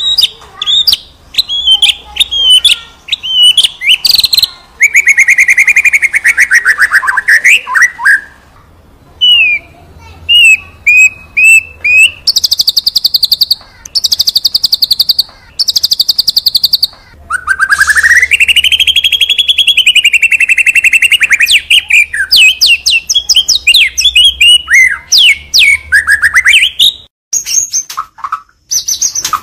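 A Borneo-type white-rumped shama (murai batu) singing non-stop in full, varied song. Quick runs of chirps and trills alternate with long whistles that glide up and down, and in the middle come three short spells of rapid, high, buzzy repeated notes.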